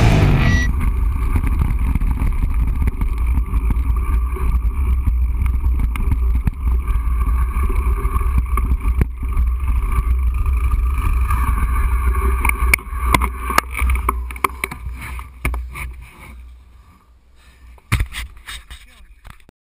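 Wind buffeting the camera microphone with tyre noise and trail chatter from a mountain bike rolling down a dirt trail, scattered clicks from the bike over bumps. The noise dies down as the bike slows to a stop, then a knock and handling noise as the camera is taken off.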